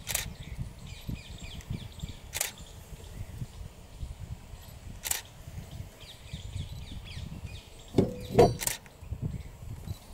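Outdoor ambience of small birds chirping over a low rumble, broken by a sharp click about every two to three seconds, with a louder cluster of knocks a little after eight seconds.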